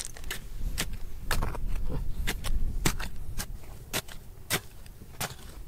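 A hand digging tool striking and scraping at rock and gravel in a mine, sharp hits coming roughly twice a second, over a steady low rumble.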